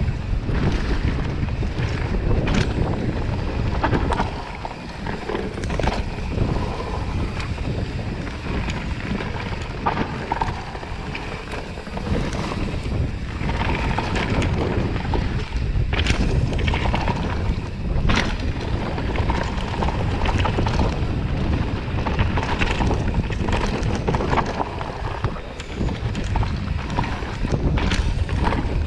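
Wind buffeting the microphone of a camera riding on a mountain bike over a dirt forest trail, with a steady rumble of tyres and frequent short knocks and rattles from the bike over bumps.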